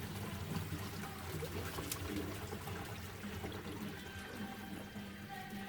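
Water from a filled kitchen sink draining down through a newly installed garbage disposal and its drain pipe, a steady pouring sound that eases slightly near the end; this is the drain test for leaks after installation.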